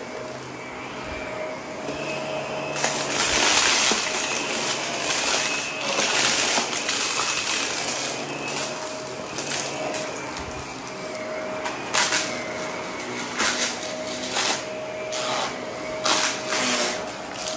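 Shark Navigator upright vacuum running with a steady motor whine while its brushroll crunches and rattles through scattered debris on hard floor and carpet. The crackling is densest from about three to seven seconds in, then comes in short separate bursts near the end.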